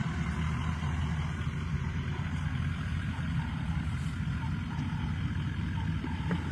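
Vehicle engine idling: a steady low rumble that holds even throughout.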